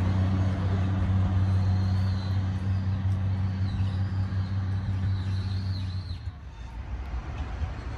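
Diesel railcar engine running with a steady low drone as the train pulls away, with faint high wheel squeals; the drone cuts off about six seconds in, leaving a quieter rumble.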